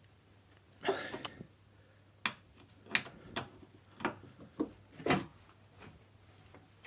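Socket wrench tightening the bolts of a car's strut-brace bracket: a string of sharp metal clicks and knocks at irregular intervals, starting about a second in.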